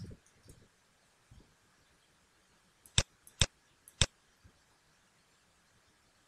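Three sharp computer mouse clicks, about half a second apart, over faint room tone.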